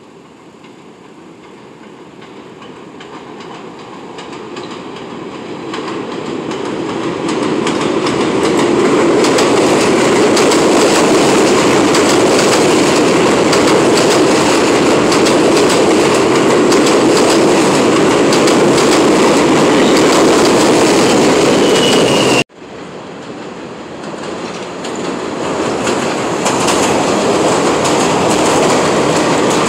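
New York City subway train approaching and running past on elevated track, its steel wheels clattering over the rail joints and building to a steady loud rumble. The sound cuts off abruptly about two-thirds of the way through, then builds again as a train runs in right alongside the platform.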